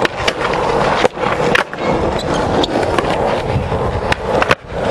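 Skateboard wheels rolling on concrete, with a few sharp clacks of the board hitting the ground as a trick is popped and landed.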